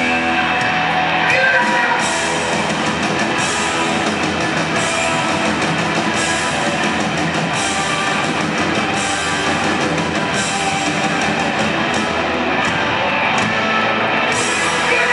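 Hard rock band playing live in an arena, heard from the audience: distorted electric guitars, bass and a drum kit, with crash cymbals accenting about every second and a half.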